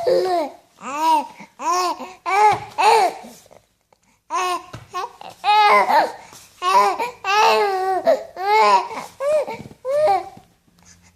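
A 10-week-old baby cooing: a string of short, pitched coos, each rising and falling in pitch, with a pause of about a second near the middle.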